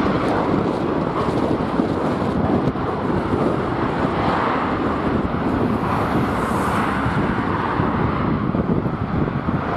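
Strong wind buffeting the microphone: a loud, steady, rumbling roar.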